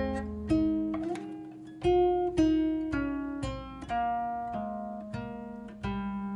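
Background music: acoustic guitar playing a slow run of plucked notes, each note ringing and fading.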